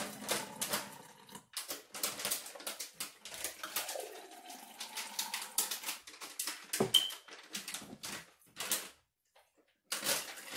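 Apple juice poured from a stainless-steel bowl through a strainer into a drinking glass: irregular splashing and trickling with small clinks of metal and glass, and one sharper clink about seven seconds in. The pour breaks off for a moment near the end.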